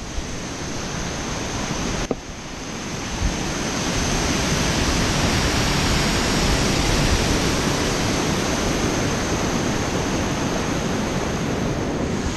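Water rushing through the open gates of a canal spillway, a steady churning white-water rush that swells about two to four seconds in. The canal is running high after about 12 inches of rain in two weeks.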